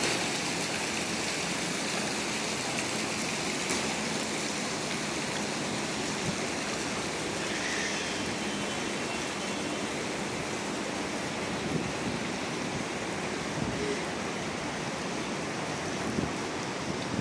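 Steady rush of running water in a swimming pool, with a few light splashes as a child wades through it.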